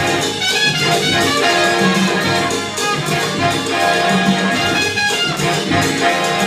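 Loud mambo dance music with a brass section, trumpets prominent, playing without a break.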